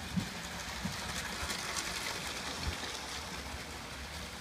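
Battery-powered Lego train running along plastic Lego track, its motor and wheels making a steady rattling hum, with a few soft knocks near the start and about two and a half seconds in.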